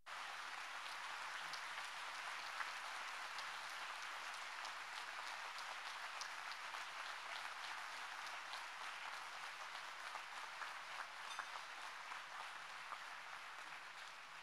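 Large audience applauding. The clapping breaks out all at once, holds steady, and tapers off near the end.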